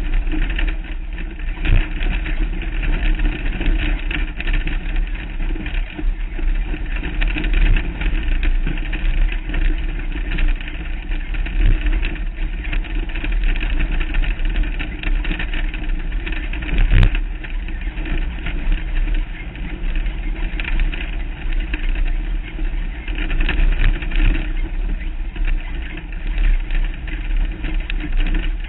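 Off-road race vehicle's engine running steadily under load on a rough dirt trail, heard from a hood-mounted camera with a heavy low rumble throughout. A few sharp knocks from bumps break through, the loudest about 17 seconds in.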